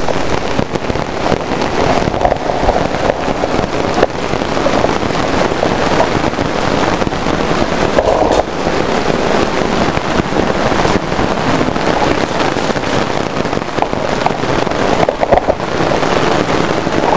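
Heavy cloudburst rain pounding on a tent shelter's canopy and plastic side sheets: a loud, dense, steady crackle of drops.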